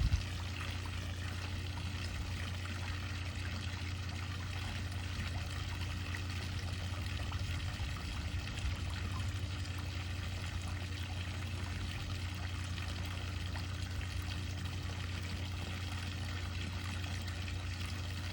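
Swimming pool fountain splashing steadily, water pouring and trickling into the pool, over a steady low hum.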